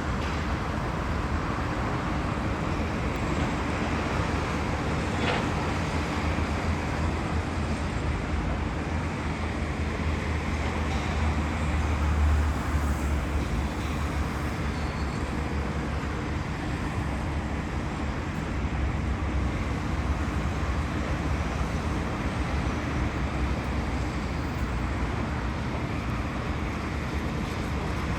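Steady road-vehicle rumble with a hiss of traffic or wind noise, heaviest in the low bass and swelling a little about twelve seconds in.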